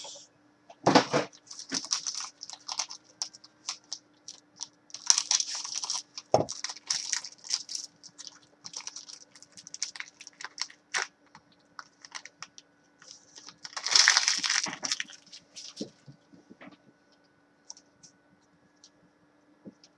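Foil wrapper of a trading-card pack crinkling and crackling as it is torn open and handled, mixed with small clicks of cards being handled. The loudest crinkle comes about 14 seconds in, over a faint steady hum.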